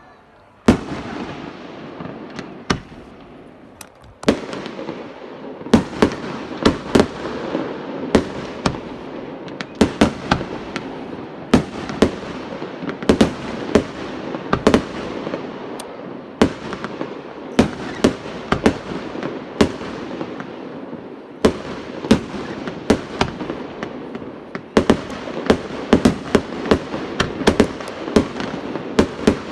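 Fireworks display: rapid, near-continuous bangs and crackling of aerial shells and firecrackers, starting abruptly about a second in and barely pausing.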